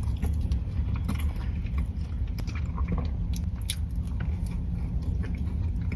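A person biting into and chewing a soft Crumbl dulce de leche cookie close to the microphone, with scattered small wet clicks, over a steady low hum.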